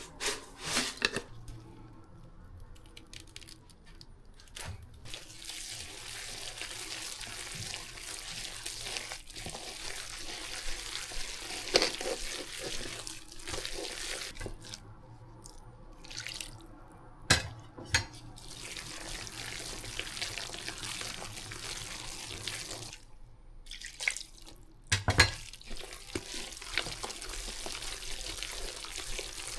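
Tap water running into a kitchen sink, cutting out briefly twice, with a few sharp knocks of things against the sink, the loudest near the end.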